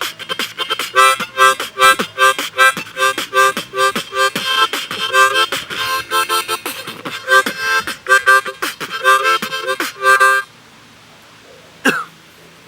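Freestyle harmonica beatbox: harmonica chords played in a fast rhythm, punctuated by percussive beatbox hits made through the instrument. The playing stops suddenly about ten seconds in, and a short sound follows near the end.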